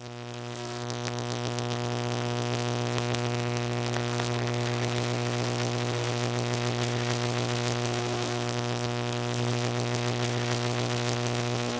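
Electrical buzz: a steady low hum with a stack of overtones and a crackling hiss above it, fading in over the first second and then holding steady.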